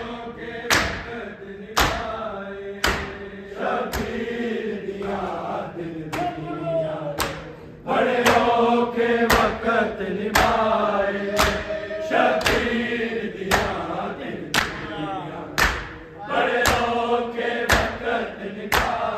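A large group of men chanting a noha together while beating their bare chests in unison (matam), a sharp slap landing about once a second under the singing.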